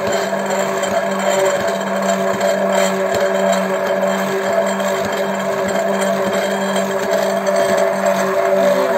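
Hand-held immersion blender running at a steady pitch with its blade in a glass jar of milk, sugar and cocoa, while oil is poured in slowly to emulsify the mixture into chocolate spread.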